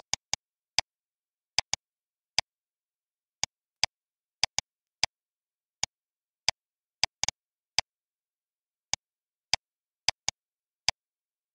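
Computer mouse and keyboard clicking: about two dozen sharp, separate clicks at an irregular pace, many in quick pairs, as shapes are copied, grouped and dragged in a graphics program.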